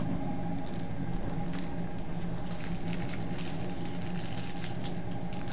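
Crickets chirping steadily, a high chirp about two or three times a second, over the low steady hum and rush of a boiling brew kettle on its burner, with scattered faint pops.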